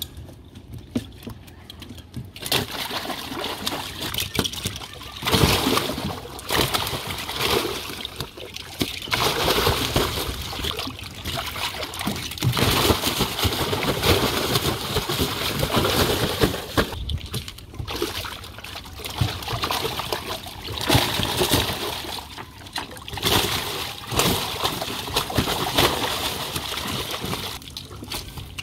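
Large live fish thrashing and splashing in a shallow tarp-lined well of water in a boat. The noisy splashing begins about two and a half seconds in and comes in repeated surges.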